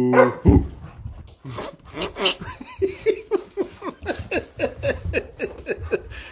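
A man laughing in a long run of short, evenly repeated bursts, his voice echoing inside the cardboard box over his head.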